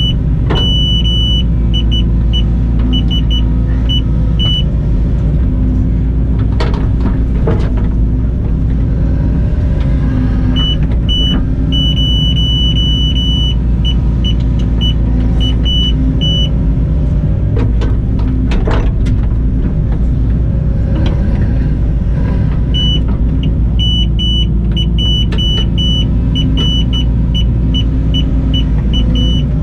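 Hitachi ZX120 excavator's diesel engine and hydraulics running steadily, heard from inside the cab. A high-pitched beep sounds in three spells, short beeps in uneven runs with a few longer held tones: the iDig machine control's audible grade guidance as the bucket nears and holds the target depth. A few knocks as the bucket works the soil.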